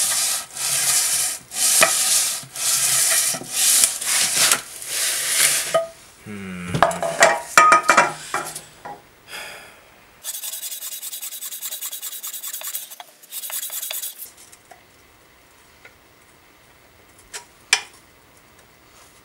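An aluminium intake manifold flange is rubbed back and forth on sandpaper, about seven long rasping strokes, to flatten the warped sealing face that was leaking vacuum. About six seconds in come irregular metal clunks as the manifold is lifted and handled, then a steady hiss for about four seconds, and two sharp clicks near the end.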